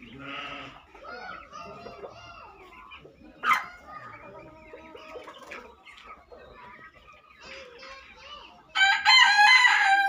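Caged chickens clucking, with a sharp short sound about three and a half seconds in; near the end a rooster crows loudly for about a second.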